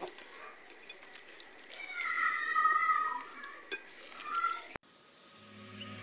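An animal's high-pitched, wavering cry about two seconds in, lasting about a second and a half, then a shorter cry, over faint ticking and handling sounds. The sound cuts out abruptly near the end.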